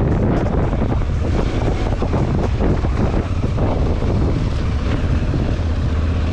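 Heavy wind buffeting on the camera microphone of a moving motorcycle, with the engine running underneath, and scattered knocks from the ride over rough ground.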